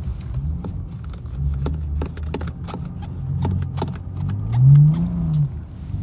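BMW 4 Series coupe's N55 turbocharged straight-six heard from inside the cabin, a low drone that revs up and falls back near the end. Sharp ticks of ice hitting the car are scattered throughout.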